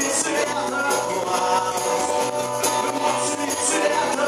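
A small rock band playing live: electric bass and guitar, with a tambourine jingling along in rhythm.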